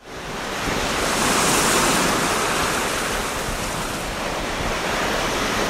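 A steady rushing noise that swells in over the first second or so and then holds.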